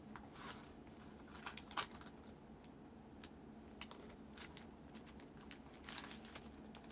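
A handful of light clicks and soft rustling as the contents of a handbag are sorted by hand: coins clinking and paper receipts shuffled. The loudest click comes about two seconds in.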